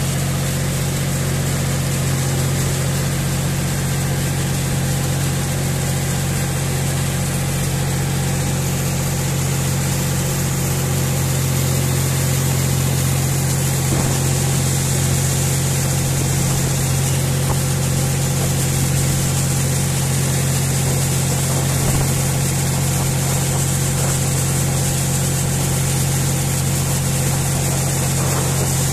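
John Deere 5045D PowerPro tractor's three-cylinder diesel engine running at a steady, constant speed while the tractor drives on iron cage wheels through a flooded paddy field.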